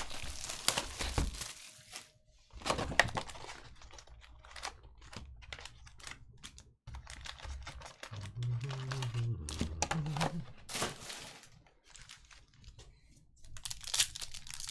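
Plastic shrink-wrap crinkling and tearing as a Panini Optic basketball card box is unwrapped and opened, in irregular bursts. Near the end, a foil card pack crackles loudly as it is torn open.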